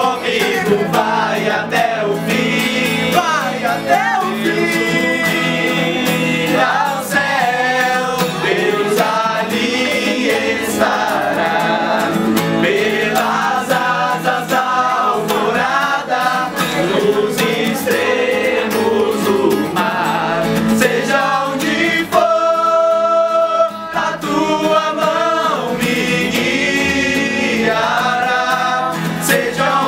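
A small group of voices singing a Portuguese worship song together in unison, accompanied by a strummed acoustic guitar.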